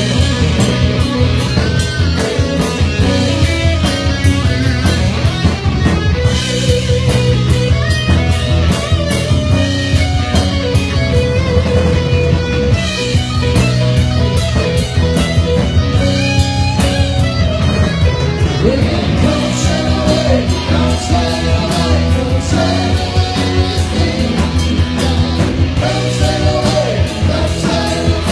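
Rock music played by a band, with electric guitar over bass and a steady drum beat.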